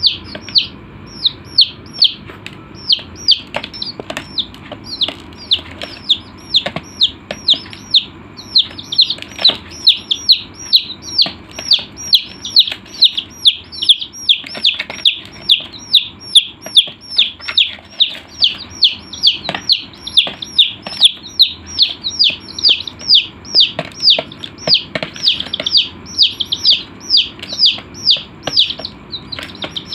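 Chicks peeping: a rapid string of short, high chirps, each falling in pitch, about three a second, several birds overlapping at times.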